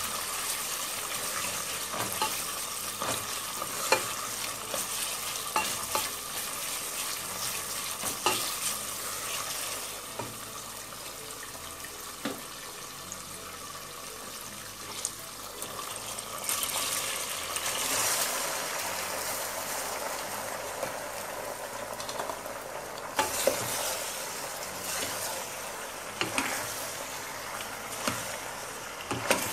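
Tomato paste sizzling as it fries in oil in a stainless steel pot, stirred with a wooden spoon that scrapes and knocks against the pot. The sizzling gets louder from about halfway through.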